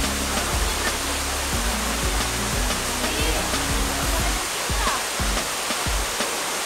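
Steady rush of falling water from a waterfall, with background music's bass line and beat underneath.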